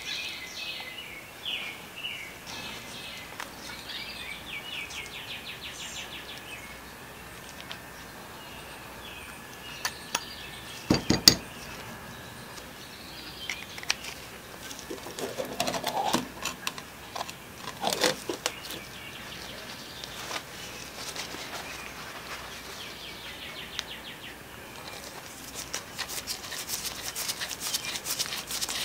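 Small metal parts of an adjustable scooter kickstand handled on a shop mat: clinks and sharp metal clacks, the loudest about a third of the way in, and scraping a little past the middle. Near the end, rapid rubbing and scraping as a tool's rod is worked inside the kickstand tube. Birds chirp in the background during the first several seconds.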